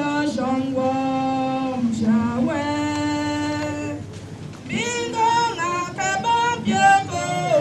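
Slow hymn singing led by a woman's voice, with long held notes. The singing breaks off briefly about four seconds in, then picks up again.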